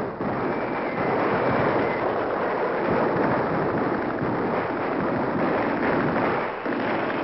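Strong wind blowing steadily, a dense rushing noise without pitch.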